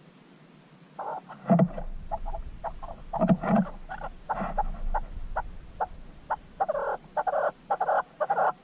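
An animal close by giving a rapid, irregular series of short croaking calls, starting about a second in and coming thicker toward the end.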